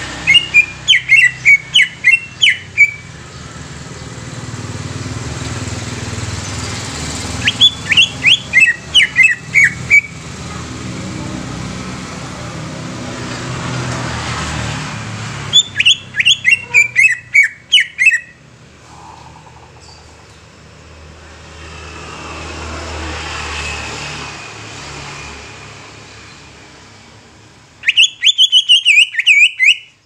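Cucak ijo (greater green leafbird) calling in four loud bursts, each a quick run of about eight to ten sharp, downward-sliding notes lasting two to three seconds. A low rumble swells and fades between the bursts.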